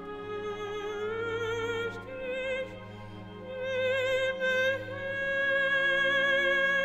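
Operatic classical music: a melody of long held notes with strong vibrato over orchestral accompaniment, rising in pitch about a second in and again a little past halfway.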